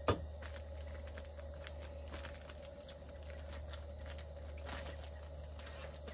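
Food-prep handling at a wooden cutting board: a sharp knock right at the start, then scattered light taps and rustles, over a steady low hum.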